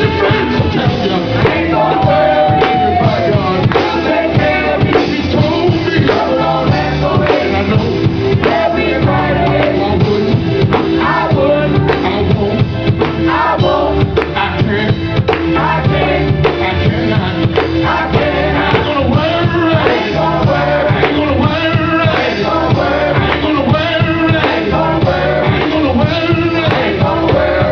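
Live gospel band playing with a steady drum-kit beat, with singing over it.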